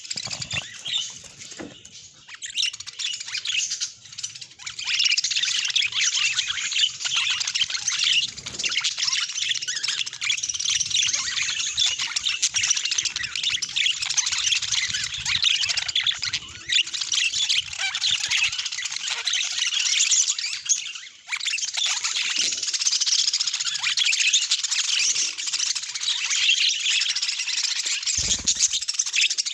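Several budgerigars chattering and warbling together, a dense unbroken stream of quick high chirps that pauses briefly about two-thirds of the way through.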